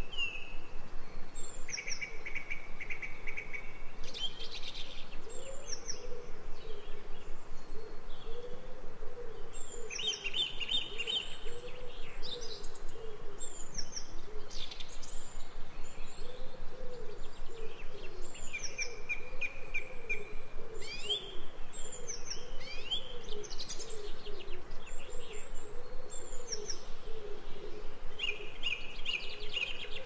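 Several songbirds singing and chirping, with short buzzy trills coming back every several seconds, over a low wavering tone.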